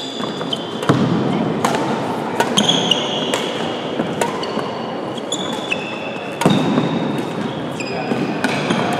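Badminton doubles rally: rackets strike the shuttlecock in a string of sharp cracks, with short high squeaks of court shoes on the hall floor, echoing in a large sports hall.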